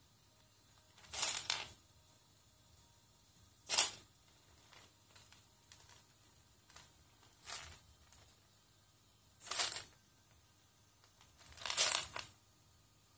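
Loose plastic Lego bricks clattering and shifting under the feet of a four-legged, servo-driven walking robot as it steps. The clatter comes in five short bursts about two seconds apart, with faint clicks between.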